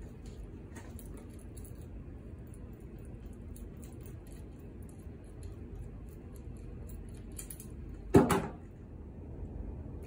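Small steel tooling parts, the polygon sleeve and its pins, clicking and clinking lightly in the hands as they are handled, with one short louder sound about eight seconds in.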